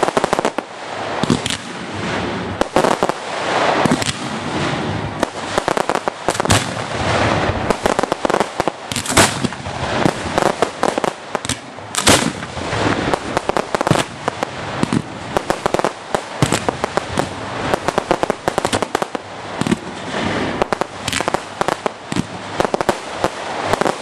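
Fireworks shells firing from ground racks of mortar tubes in a hand-lit display: a dense, continuous run of sharp bangs over a steady rushing noise.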